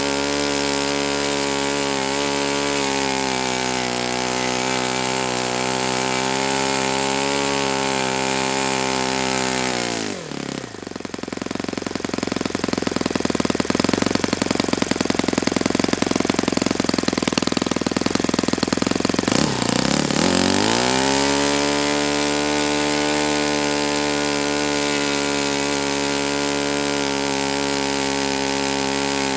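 Saito FA-72a single-cylinder four-stroke glow engine running on a test stand at a steady speed. About ten seconds in its speed changes sharply and it runs louder for about ten seconds. It then settles back to the steady speed.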